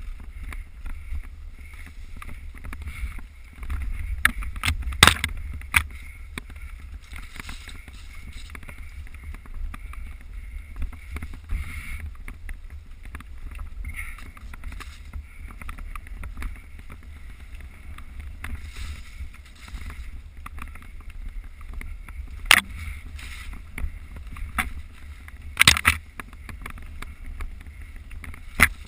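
A GoPro riding on a mountain bike off-road picks up wind buffeting and the steady rumble of the ride, with sharp clacks as the bike and camera mount jolt over bumps. The loudest clack comes about five seconds in, and a few more come near the end.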